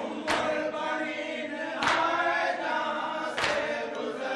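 A group of mourners softly chanting a noha refrain, in time with chest-beating (matam). Three sharp strikes land about a second and a half apart.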